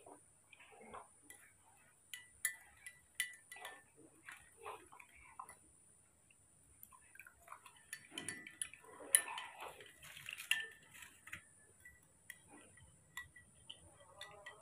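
Metal teaspoon clinking and scraping against a glass cup as baby porridge is stirred: irregular light clinks, busiest about two to five seconds in and again around nine to eleven seconds in.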